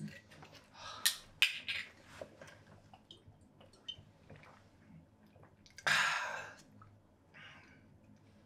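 A glass and bottle being handled: a few soft clicks and knocks, then a short splash of liquor poured about six seconds in.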